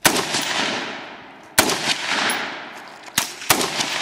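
Semi-automatic AR-15 rifle in .223 firing single shots, each followed by a long echoing decay: three shots about a second and a half apart, then a fourth quickly after the third.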